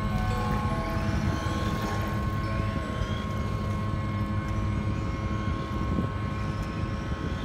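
Electric motor and gears of a Holyton 9025E 1/12-scale RC car whining, the pitch rising and falling as the throttle is worked. This sits over a steady low background hum.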